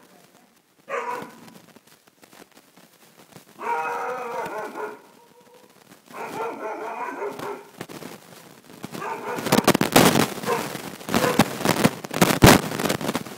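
Dobermann puppy giving drawn-out, howling barks: a short one, then two longer calls of about a second and a half each. In the last few seconds a loud crackling, rustling noise takes over.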